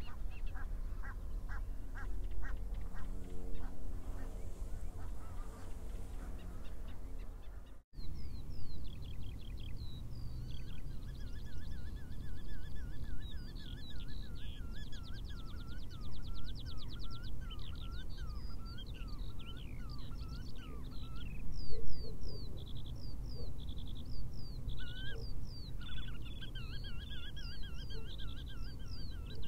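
Wetland bird sounds: a bird gives a rapid run of low, harsh, evenly repeated calls for the first several seconds. The sound cuts out briefly about eight seconds in, then small songbirds sing and trill with quick, varied, repeated phrases, over a low rumble of wind.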